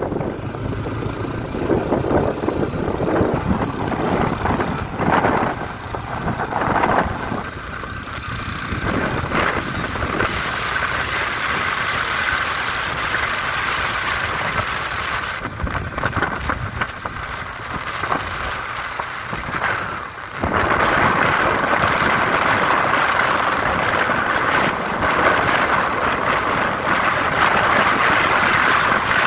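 Motorcycle engine running on the move, with wind buffeting the microphone. The noise gets louder about two-thirds of the way through, as if the bike speeds up.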